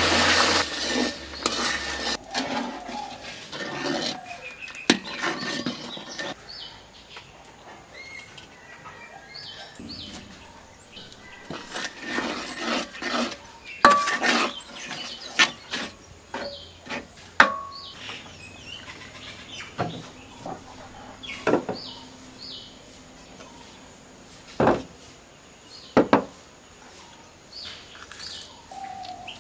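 Syrup bubbling and hissing in a metal wok over the fire, fading within the first two seconds. Then a wooden spatula stirs grated coconut into it, with scattered scrapes and sharp knocks against the pan.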